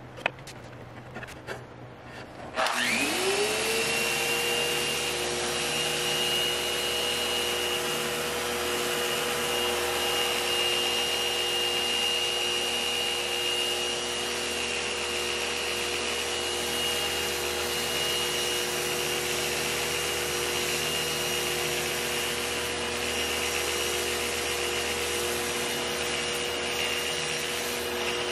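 A few light handling knocks, then a power sander starts about two and a half seconds in: its motor whine rises quickly and settles into a steady run, with the hiss of 80-grit paper working on English walnut.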